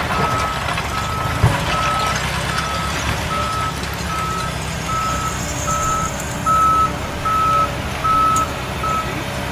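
Backup alarm of a Cat 988K XE wheel loader beeping as the loader reverses: one steady tone repeating evenly, just under two beeps a second, stopping shortly before the end. Under it is the low, steady running of the heavy machines' diesel engines.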